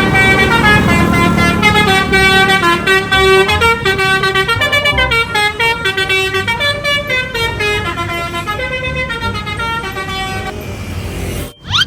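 Indonesian 'telolet' musical bus horn playing a tune: a long run of loud multi-tone notes stepping up and down in pitch, growing softer over the last few seconds. A short rising sweep closes it near the end.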